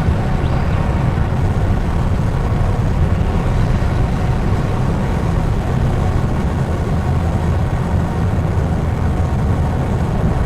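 Noise-drone music: a dense, steady wall of low noise, heaviest in the bass, with a fainter hiss above and no beat or melody.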